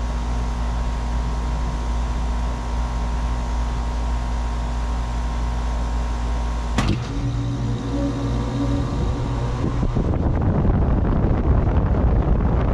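5-ton Carrier 38BRC air-conditioner condensing unit starting up: a steady low hum, then a sharp click about seven seconds in, after which a new steady compressor hum sets in. About three seconds later the condenser fan's rushing air joins and the unit gets louder.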